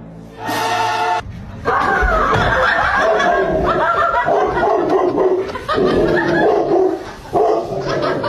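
A person laughing in uneven bursts, mixed with a dog barking.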